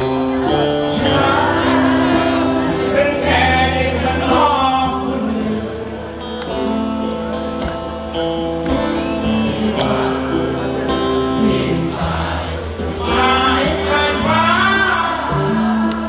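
Live band music, loud and continuous, with a male voice singing over electric and acoustic guitars and a steady bass line; the sung lines waver with vibrato in a few places.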